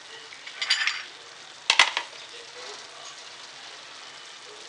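Masala with goat brain pieces sizzling gently in a frying pan, a steady faint hiss. Under a second in comes a brief metallic clatter, and shortly after a single sharp metal clink, the loudest sound.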